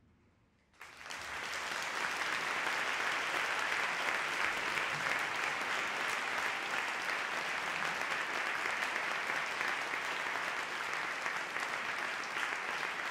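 Audience applauding after a brief hush, the clapping starting abruptly under a second in and then holding steady.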